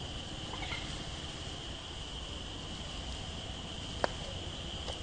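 A steady, high-pitched insect drone, one even tone holding throughout, with a single sharp click about four seconds in.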